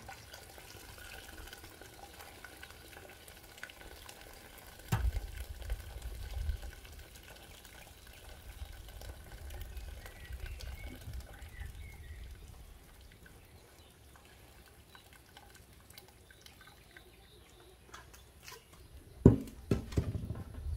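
Hot boiled pine-cone water pouring and trickling through a strainer. A knock sounds about five seconds in, and a few more knocks come near the end, each with a low rumble.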